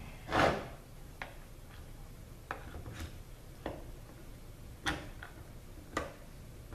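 Metal valve body sections of a ZF 5HP24 transmission knocking and clicking against each other as they are handled and fitted together: a short scrape about half a second in, the loudest sound, then scattered sharp clicks at irregular intervals.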